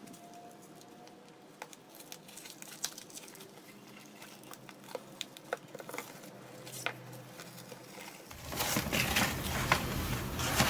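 Mail package being opened by hand: faint crinkling of packaging and small clicks, becoming louder, denser rustling and handling from about eight seconds in.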